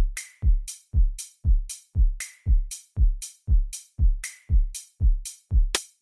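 Deep house drum loop playing back: a steady four-on-the-floor kick about twice a second, crisp high hits between the kicks, and a ringing hit once every four kicks.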